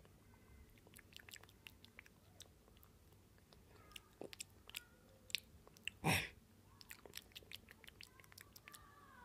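Faint chewing and crunching with scattered small clicks, as of food being eaten, and one louder short crunch or rustle about six seconds in.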